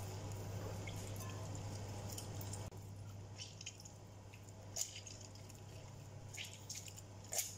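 A spoon pressing and scraping into a halved orange, squishing the pulp while juice drips into a glass bowl: a few short wet squelches and clicks, the loudest near the end, over a steady low hum.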